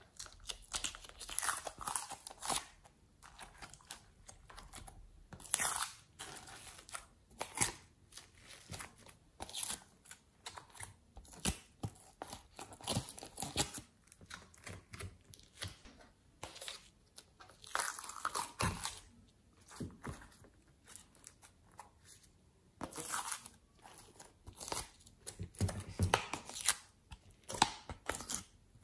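Glossy slime being peeled out of a plastic crab-shaped mould tray and pressed onto a dish of glitter and sprinkles: sticky peeling sounds in irregular bursts, with the plastic tray being handled.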